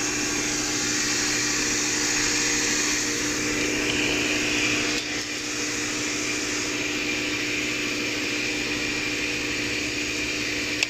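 Napkin tissue paper folding machine running steadily: an even mechanical hum with one constant tone under an airy hiss.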